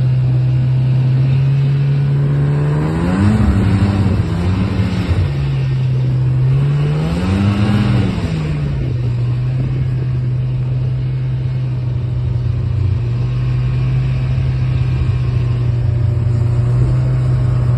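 Motor vehicle engine idling steadily, revved up briefly twice, about three and seven seconds in.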